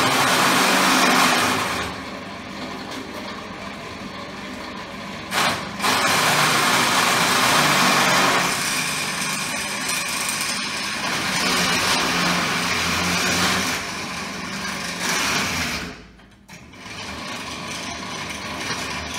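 Floor-standing pillar drill press running and drilling into a metal part held in a drill vice. The sound is a steady motor hum with cutting noise that gets louder in two spells, and it drops away briefly about sixteen seconds in.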